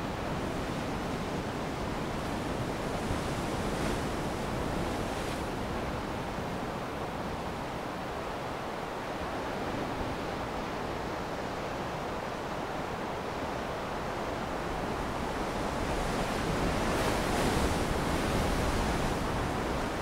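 Ocean surf breaking, a steady rushing wash of waves that swells louder near the end.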